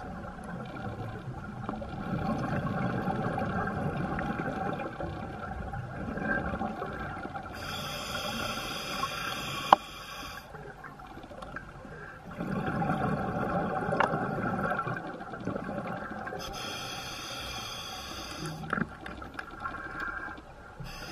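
Scuba diver breathing underwater through a regulator, two full breaths: a low burble of exhaled bubbles, then a hissing inhale, with the cycle repeating. A sharp click sounds about ten seconds in.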